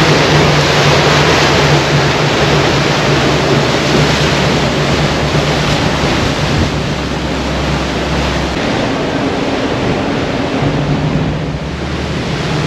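Pilot boat underway at speed: rushing wake water and wind, loud and steady, over a low engine drone.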